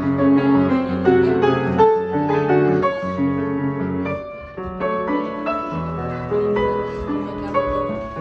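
Background music: a piano playing a melody over sustained chords.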